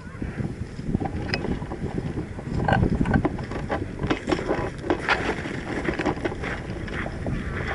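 Rumbling wind noise on the microphone, with scattered short clicks and rustles.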